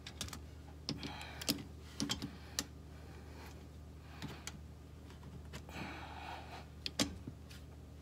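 Hand ratchet clicking as the rear brake caliper bolts are snugged tight: scattered sharp metallic clicks at irregular intervals.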